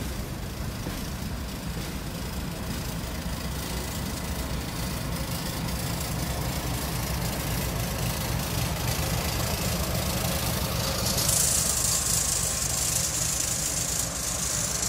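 Freight train rolling past, with a Union Pacific diesel locomotive's engine running with a steady low rumble as the unit goes by. A loud hiss joins in about eleven seconds in.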